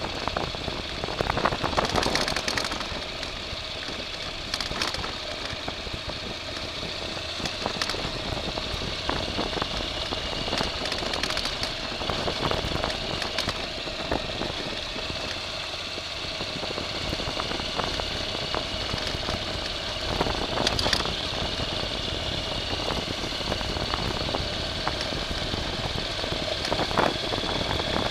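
A vehicle's engine running steadily, with scattered knocks.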